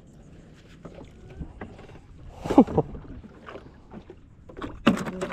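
Handling noise aboard a small fishing boat, with water lapping at the hull and scattered knocks and clatter. A short loud sound that falls in pitch comes about two and a half seconds in, and heavy knocks from the big cooler's lid come near the end.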